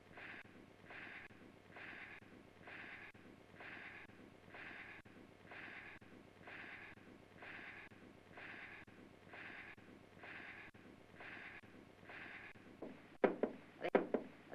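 Heavy, even breathing: a soft hissing breath about once a second, repeated some fourteen times. Near the end, several sharp knocks with short, louder pitched sounds.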